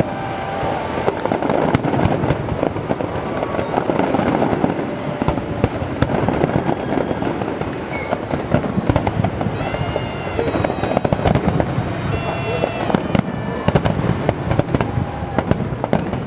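Fireworks display at full intensity: a dense, continuous barrage of shell bursts, bangs and crackling from many fireworks going off at once.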